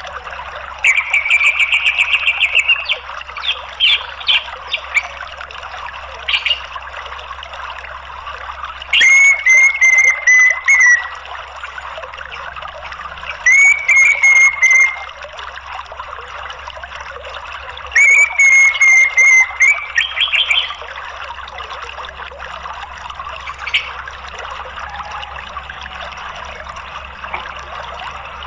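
Orange-headed thrush giving rapid chattering 'ngeriwik' calls in several bouts of one to two seconds, with a few single sharp notes between, over a steady rushing-water background.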